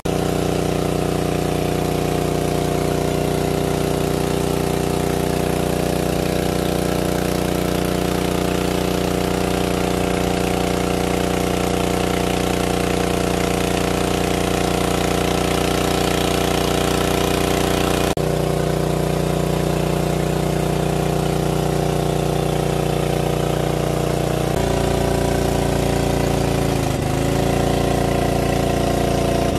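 Engine-driven water pump running steadily at constant speed, its pitch stepping slightly twice.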